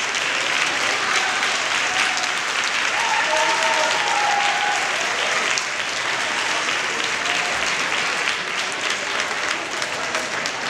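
Audience applauding, a dense steady clapping that begins to thin out near the end.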